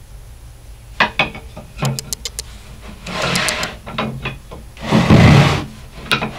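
Poplar and alder wood strips knocking and clacking together as they are set down on a table saw top, with two scraping slides as the strips are pushed across it; the second scrape, about five seconds in, is the loudest.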